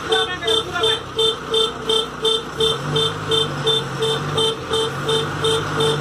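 Reversing alarm on a Tata 3118 tipper truck beeping steadily at about three beeps a second, over the truck's diesel engine, which steps up and holds a stronger note about two and a half seconds in.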